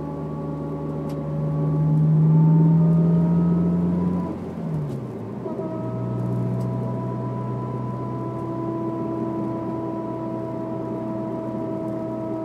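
Honda S2000 four-cylinder engine pulling while driving, its pitch rising slowly, then dropping sharply about four and a half seconds in, as at a gear change or lift-off, before running steadily again. This is the car whose whine comes only with the foot on the gas, which the owner suspects is the differential or the transmission.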